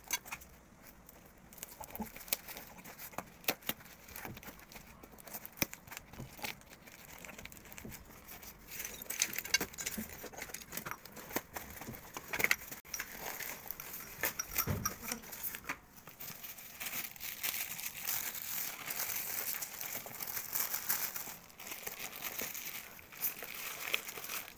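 Plastic packaging wrap crinkling and rustling as a parcel is unwrapped by hand, with many small irregular clicks and clinks of broken clay pottery pieces being handled in a steel plate. The crackling gets busier about a third of the way in.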